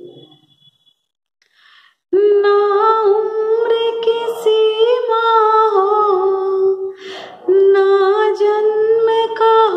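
A woman singing unaccompanied: a wordless melody of long held notes. It begins about two seconds in, after a brief pause and a breath, and breaks off briefly for a breath about seven seconds in.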